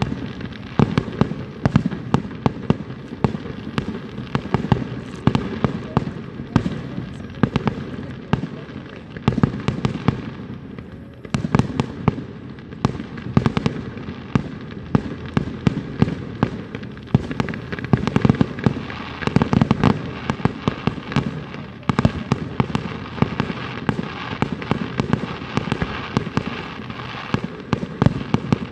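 Fireworks display: aerial shells bursting in quick succession, a near-continuous run of bangs and crackles.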